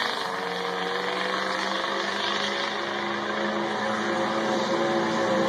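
Diesel pickup truck's engine under full throttle on a drag strip run, its note rising slowly and steadily as it pulls away down the track.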